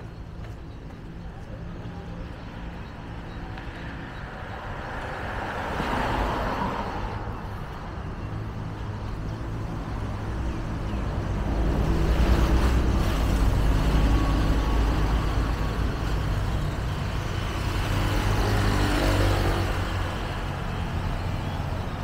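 Street traffic: motor vehicles driving past one after another, with engine rumble swelling as each passes: a lighter one about six seconds in, the loudest and deepest from about twelve to fifteen seconds in, and another near nineteen seconds.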